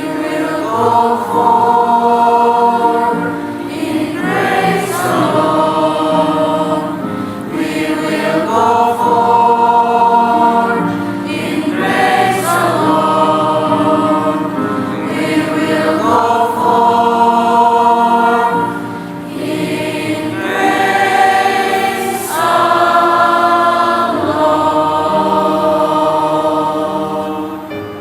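Junior high school choir singing a Christian hymn, several voices together in sustained phrases.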